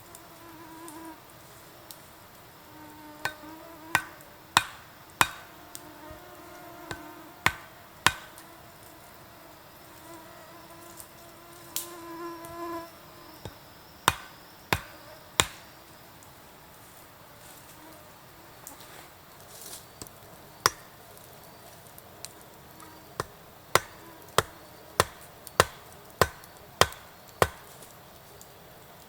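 An insect buzzing close by, off and on, over a series of sharp knocks of something hard striking wood. The knocks are scattered at first, then come in a steady run a little more than every half second near the end.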